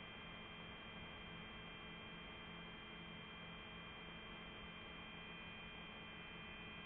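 Faint steady electronic hum with a thin high whine from a powered-on DJI FPV drone resting on its landing pad with the propellers stopped.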